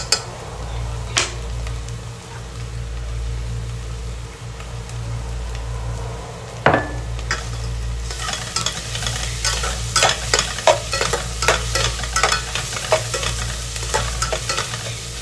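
Onion and garlic frying in sunflower oil in an aluminium pot, stirred with a fork that scrapes and clinks against the metal; the clinks come in quick succession from about halfway through. A steady low hum runs underneath.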